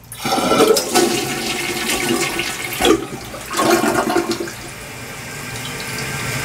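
A newly installed round-bowl toilet flushed with its trip lever: water rushes into the bowl, loudest for the first four seconds or so. It then settles into a quieter steady hiss as the tank refills.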